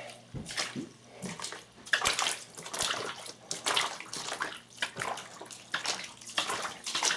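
Floodwater in a basement sloshing and splashing in uneven surges about once a second, with a few light knocks in the first second or so.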